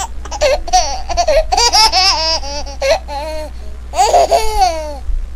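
A very high-pitched voice babbling and laughing, its pitch bending up and down, over a steady low hum.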